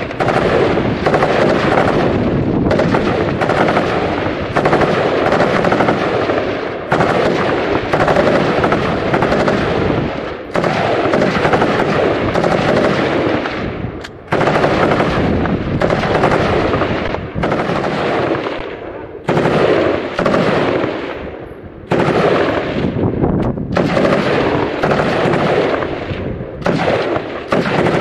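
FN Minimi 5.56 mm light machine gun firing long bursts of automatic fire, broken by short pauses every one to four seconds.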